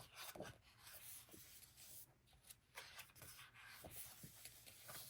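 Faint rustling and light handling of paper: glossy pages of a photo book being touched and turned.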